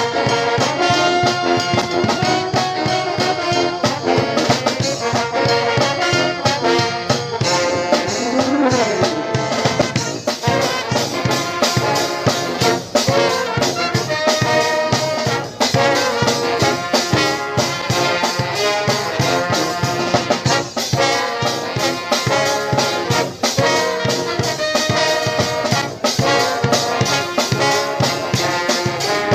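Live brass band playing, with trombones and trumpets carrying the tune over a steady drum beat.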